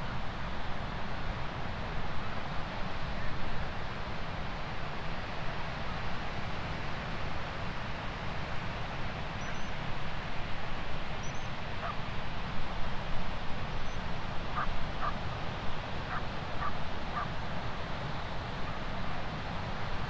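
Surf washing in steadily, with wind rumbling on the microphone. In the second half a bird gives several short calls.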